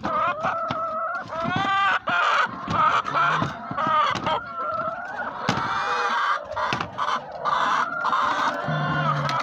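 A flock of laying hens clucking and calling over one another, with several drawn-out calls and a few sharp knocks from plastic nest-box grating being handled.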